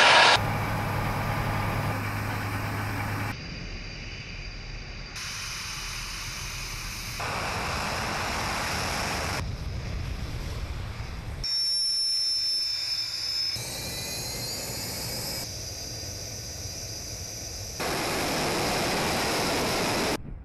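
Military jet engines at takeoff power, in a string of short clips that cut abruptly every two seconds or so. One clip carries a high, steady turbine whine over the engine noise.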